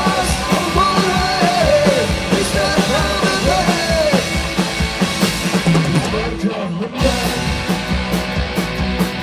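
Live rock band playing, with a sung vocal line over guitars and drums. About six seconds in, the band thins out briefly, then drums and guitars come back in with steady beats.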